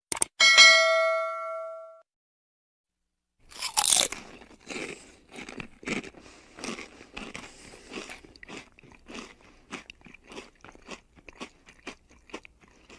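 Sound effects: a click and a bell-like ding that rings out and fades over about a second and a half, then, after a short pause, a long irregular run of crunching, as of someone chewing crisp food.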